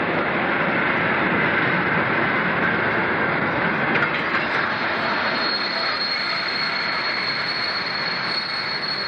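Passenger train coaches rolling past close by, a steady rumble of wheels on rails. About halfway through a thin, high, steady squeal joins in.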